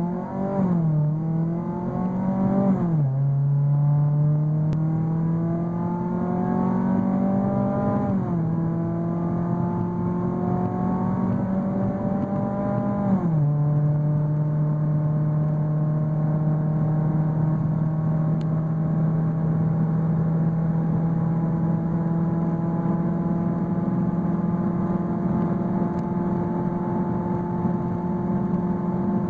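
Chevrolet Prisma's modified exhaust (downpipe, Cherry Bomb and Magnaflow mufflers) rumbling loudly. The engine note climbs and then drops sharply four times over the first thirteen seconds, then holds a steady drone.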